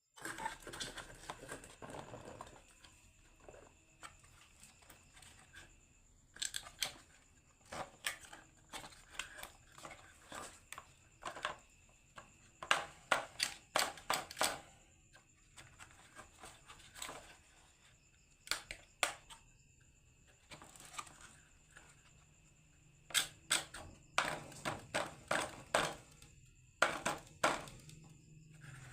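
Marbles rolling and clacking down a wooden HABA marble run, in clusters of rapid clicks and knocks with short lulls between, over a faint steady high-pitched tone.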